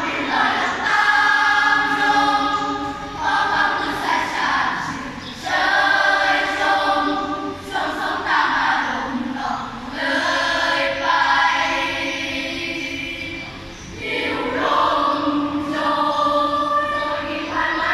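Children's choir singing in two parts, held notes in phrases with short breaths between them.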